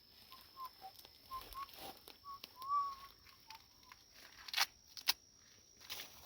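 Soft, short whistled notes, about a dozen scattered ones with a longer wavering note near the middle, over a steady thin high tone. Two sharp clicks sound close together a little after halfway.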